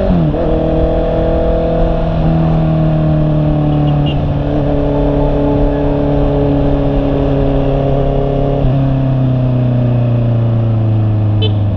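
Honda CB650R's inline-four engine running under way at a steady cruise. Its note eases slowly lower and steps down a few times, over a steady rush of wind and road noise.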